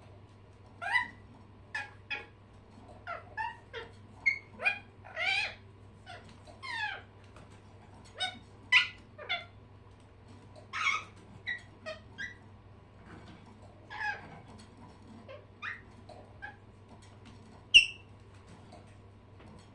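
Pet birds calling in a run of short chirps and squawks at irregular intervals, several sliding in pitch, with the loudest call near the end.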